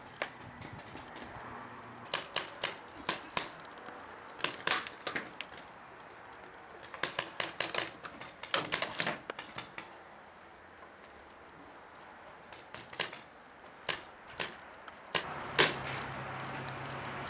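Paintball markers firing: irregular volleys of sharp pops, several shots in quick succession, then pauses. A low steady hum comes in near the end.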